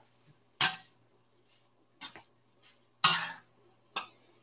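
Spatula scraping and knocking against a 14-inch Lodge cast iron wok while tossing stir-fried rice: four separate strokes, the third the loudest.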